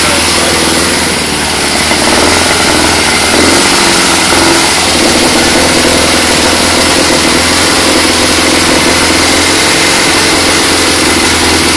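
Freshly rebuilt Jowett Javelin flat-four engine running steadily on its stand, its note shifting briefly a few seconds in.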